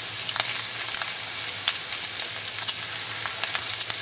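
Diced bacon, garlic and hot peppers sizzling in butter in a frying pan: a steady hiss dotted with frequent small crackles and pops as the bacon starts to brown.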